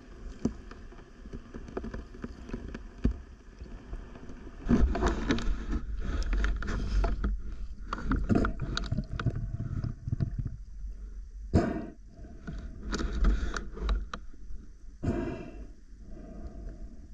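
Muffled water noise heard underwater as a freediver moves, with a low rumble throughout and louder rushing surges from about five seconds in. There is a sharp knock near the middle.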